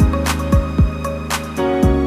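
Background music: sustained chords over a steady drum beat with deep kick-drum thumps.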